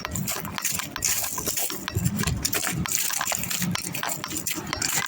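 Railroad crossing bell going off in the distance, under many irregular clicks and crunches close to the microphone.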